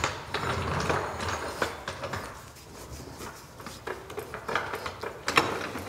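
Hydraulic floor jack being pumped by its long steel handle, with a series of uneven clanks and clicks as it lifts the front of a zero-turn mower.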